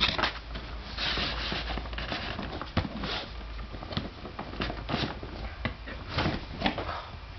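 Packaging rustling and crinkling as a keyboard is lifted out of its box, with a few light knocks and clicks.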